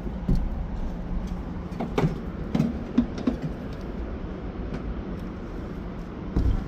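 Steady low rumble with a handful of scattered short knocks and clunks, the loudest just before the end.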